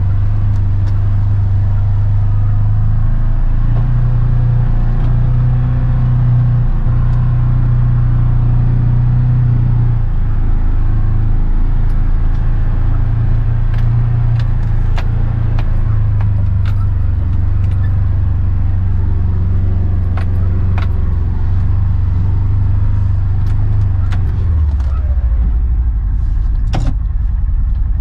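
Polaris Ranger 1000 side-by-side's twin-cylinder engine running as the vehicle creeps along, heard from the driver's seat in the cab. Light clicks and rattles come in from about halfway. Near the end the engine note drops as the vehicle slows to a stop.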